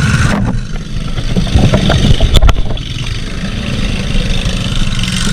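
Mud mower's small engine running steadily, its higher-pitched noise easing off about half a second in. A single sharp knock comes a little past two seconds in.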